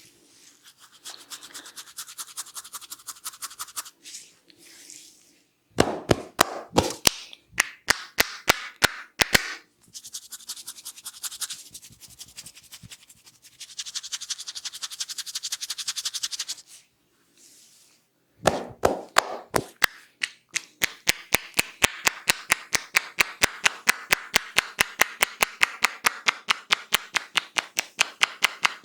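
Head massage: brisk rubbing and scrubbing of the hair and scalp, broken by a short run of sharp percussive strikes, then from about two-thirds of the way in a long run of rapid, evenly spaced strikes.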